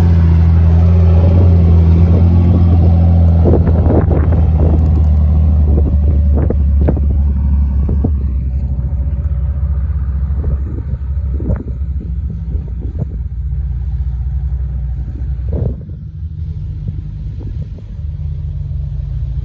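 Off-road Jeep engine running steadily at low revs close by, then gradually fading, with scattered sharp knocks from about four seconds in as the vehicles crawl over dirt and rock.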